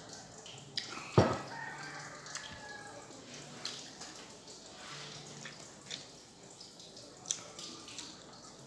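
Close-up eating sounds: a ceramic mug knocks down onto the table about a second in, followed by scattered wet mouth clicks and smacks as food is chewed.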